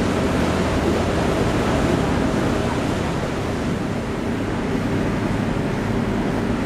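Steady wind buffeting the microphone and choppy river water, over a low, steady engine hum.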